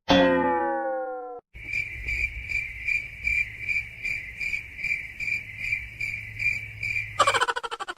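Crickets chirping in a steady, even rhythm of about three chirps a second. It comes after a sudden ringing tone that slides downward in pitch over about a second at the start. A loud, fast-quavering sound cuts in near the end.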